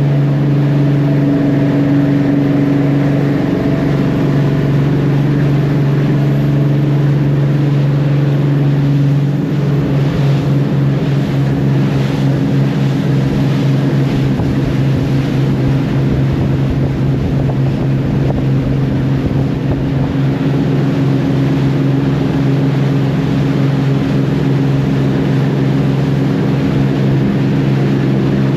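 Boat engine running steadily at a constant pitch, its tone shifting slightly about nine seconds in.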